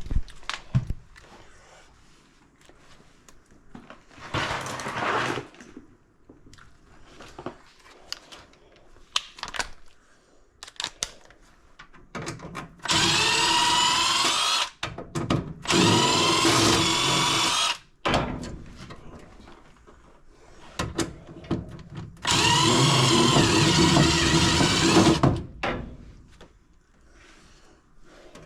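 Power drill running in four bursts: a short one, then three of two to three seconds, each with a pitch that rises and falls. Light knocks and handling sounds come between the runs.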